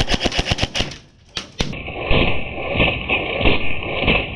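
Airsoft gun firing: a rapid run of sharp clicks, about ten a second, for roughly a second. After a short pause the sound turns muffled and hissy, with a few dull thuds.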